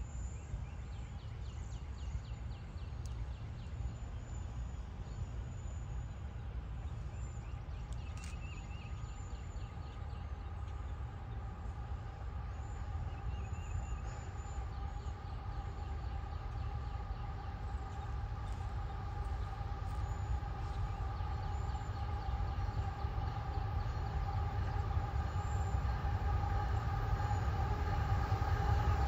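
Distant CSX freight train's diesel locomotives approaching: a steady low rumble with a few steady engine tones, growing gradually louder.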